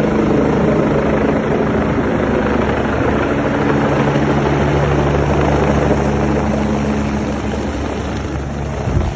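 Helicopter running close by: a loud, steady rotor and engine noise with a constant low hum, easing off slightly in the last couple of seconds and breaking off abruptly at the very end.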